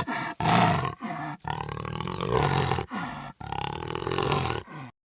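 Jaguar roaring: a run of about seven roars separated by brief breaks, one of them long, which stops suddenly near the end.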